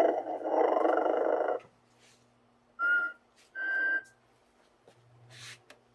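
Vintage 1995 Telco Mrs. Santa Claus Snoring Motionette playing its snoring sound: a long snore, then two short whistles, over a faint steady hum.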